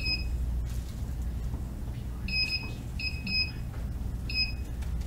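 Heat press control panel beeping as its buttons are pressed to raise the temperature, toward 375 °F. Five short, identical high beeps: one at the start, then four in a loose cluster from a little over two seconds in to near the end.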